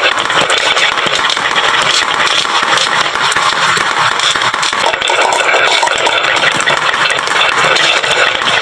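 Many marbles rolling and clattering down a wooden marble-run slope, a dense, unbroken rattle of many small clicks.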